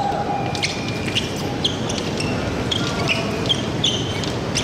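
Fencers' shoes squeaking and tapping in quick footwork on the piste during an épée bout, over the steady murmur of a crowded sports hall.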